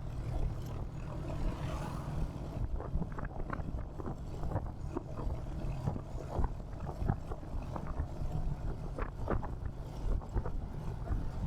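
Royal Enfield Hunter 350's single-cylinder engine and exhaust running on the move: a steady low thump, with scattered short knocks and road noise over it.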